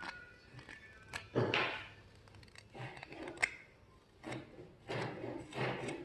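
Spoon knife being worked against a buffing wheel: a run of short, irregular rasping swishes, each contact lasting about half a second, some starting with a click.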